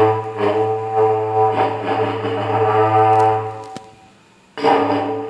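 A berrante, the long Brazilian horn made of joined cattle horns, blown in loud droning blasts with swelling accents. The first long call breaks off just before four seconds in, and a second blast starts about a second later.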